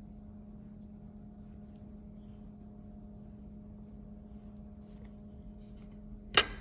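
Steady mechanical hum, a low tone with fainter higher tones over it, with one sharp knock near the end.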